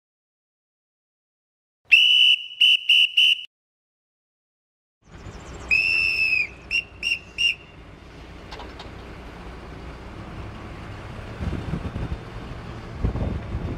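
A dogger's crane-signalling whistle: four short shrill blasts about two seconds in, then a few seconds later one long blast followed by three short ones, the whistle signal for jib-trolley out or telescoping boom extended. Under and after the second signal a mobile crane's engine runs steadily, with louder surges near the end.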